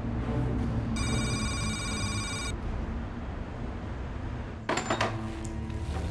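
A telephone rings once, a warbling electronic ring about a second and a half long, over a low steady hum. A short clatter of knocks follows a few seconds later.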